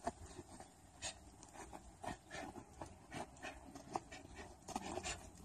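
Winter boots scuffing and crunching on packed snow, with sharp, breathy exhales, as a kickboxing combination is thrown again and again; short sounds come irregularly, a few each second.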